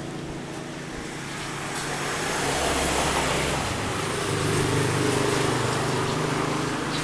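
A motor vehicle passing on the road: engine hum and road noise that swell about two seconds in and stay up.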